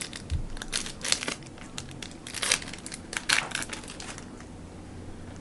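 Crinkling of a plastic trading-card pack wrapper being handled and torn open, in a few short, irregular bursts.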